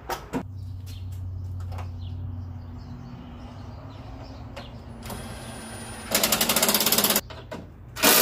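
Scattered clicks and knocks of work in the engine bay. About six seconds in comes a loud, fast, even mechanical rattle lasting about a second, and near the end a sharp loud knock.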